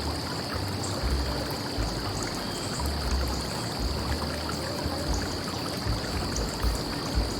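Running water, a steady rushing hiss, with a thin steady high tone over it and uneven low rumbles underneath.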